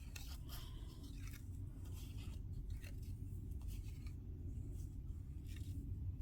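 Paper ephemera pieces being handled and laid down: scattered soft rustles and light ticks of paper, over a low steady room hum.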